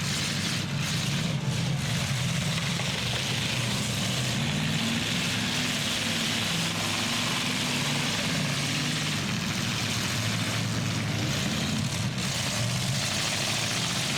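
Engines of several demolition derby trucks running and revving, their pitch wandering up and down over a steady wash of engine noise.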